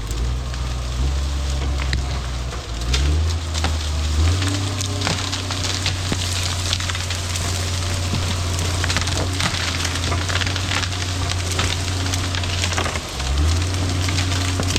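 Wood cracking and splintering in many sharp snaps and crackles, over a steady low drone that steps up in pitch about three and four seconds in and dips briefly near the end.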